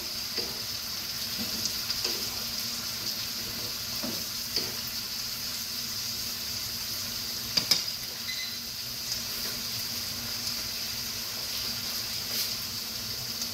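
Sliced bell peppers, snow peas and onions sizzling steadily in a hot frying pan while being stirred with a wooden spatula, with a few light clicks from the spatula against the pan, the sharpest about eight seconds in.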